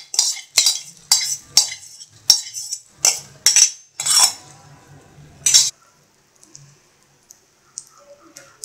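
A metal utensil scraping and clinking against cookware, about two sharp strokes a second, stopping about four seconds in with one last stroke shortly after. Then only the faint sizzle of the omelette frying in oil on the iron tawa.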